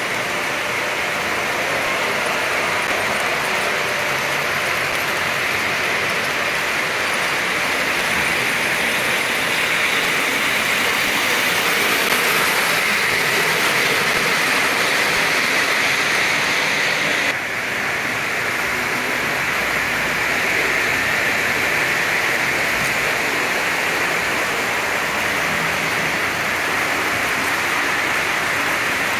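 Three-rail O-gauge model trains running on layout track: a steady rolling whir and hiss of wheels on rail, with no clear tone. Its character shifts abruptly a little over halfway through.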